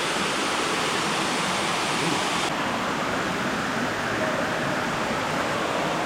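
Waterfall water rushing, a steady, even roar.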